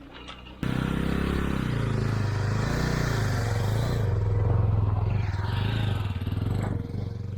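Motorcycle engine running steadily. It cuts in suddenly about half a second in and drops away near the end, with a rushing noise over it.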